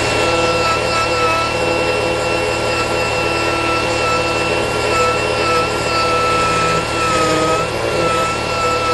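Pneumatic (air-powered) grinder running continuously and grinding away material around the shifter opening, with a steady high whine whose pitch wavers slightly and sags briefly as it bites near the end.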